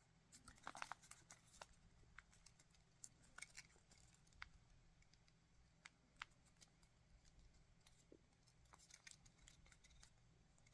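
Near silence with faint, scattered ticks and rustles of origami paper being folded and creased by hand.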